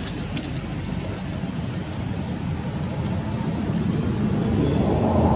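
Steady low rumbling outdoor background noise that swells louder over the last second or so, with a faint high chirp about three and a half seconds in.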